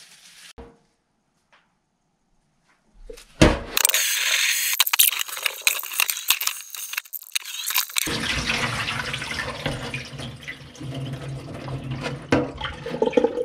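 After about three seconds of near silence, tap water runs and splashes into a frying pan of raw chicken pieces in a stainless-steel sink as the chicken is rinsed. A low hum joins the water sound partway through, and the rinse water is then poured off from the tipped pan into the sink.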